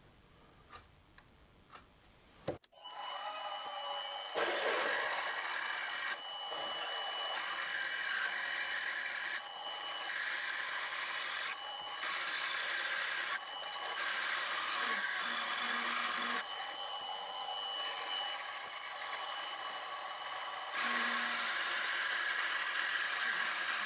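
A few light clicks, then a drilling machine's spindle starts about two and a half seconds in and runs with a steady high whine while a twist drill bores into the collar casting for the cotter-pin hole. The level jumps up and down abruptly several times.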